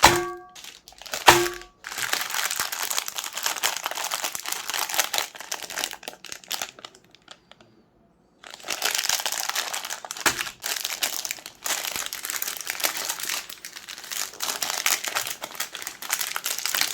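Plastic ice cream bar wrappers crinkling and crackling. The crackling comes in two dense stretches split by a pause of about two seconds near the middle. Two short pitched blips sound at the start.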